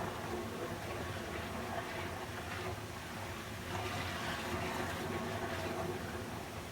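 Running water flowing steadily: a continuous rushing, hissing noise with no breaks, played as white noise for sleep.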